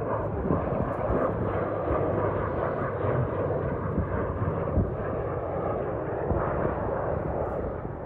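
Airbus A400M Atlas military transport flying low past, a steady heavy drone from its four turboprop engines and propellers, easing slightly near the end.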